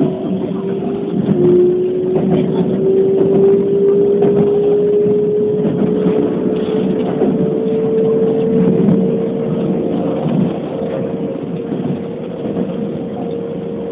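Keikyu New 1000 series electric train running, heard from inside the front car: a motor whine that climbs slowly in pitch over the first half and then holds steady as the train gathers speed, over continuous wheel and rail rumble.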